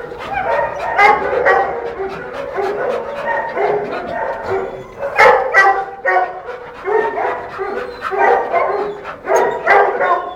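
Dog whining and yipping almost without pause, short high cries following one another quickly, with a few sharper, louder yelps about five seconds in and again near the end.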